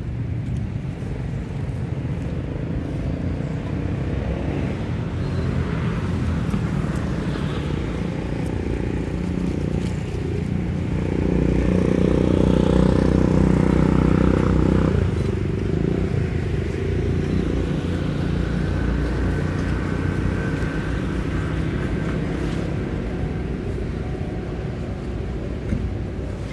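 A motor vehicle engine passing, loudest for about four seconds around the middle, over a steady low outdoor rumble.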